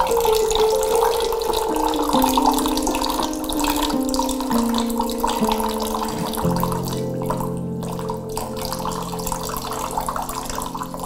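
Water poured in a thin steady stream from a glass measuring cup into a drinking glass, splashing and trickling. Background music plays under it, slow held notes stepping downward.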